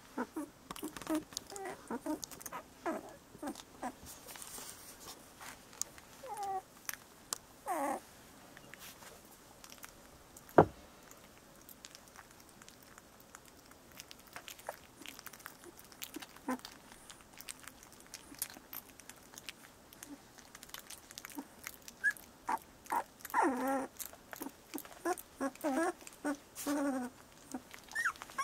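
17-day-old bordoodle puppies squeaking and whimpering in short, sliding calls, with small clicks and shuffles from the litter. The squeaks come thickest near the end. A single sharp knock about ten seconds in is the loudest sound.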